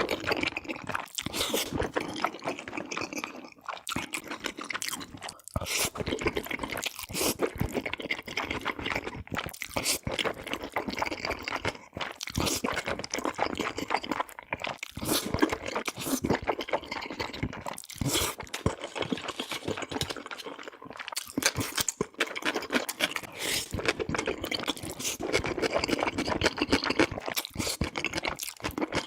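Close-up eating sounds of someone eating noodles: a continuous run of wet chewing and mouth smacks with crunchy clicks, pausing briefly now and then.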